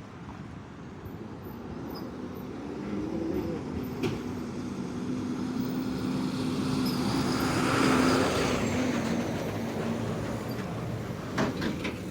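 Road traffic: a heavy vehicle's engine drone builds and passes, loudest about eight seconds in, over steady traffic noise. A few sharp clicks or knocks are heard, one about four seconds in and a cluster near the end.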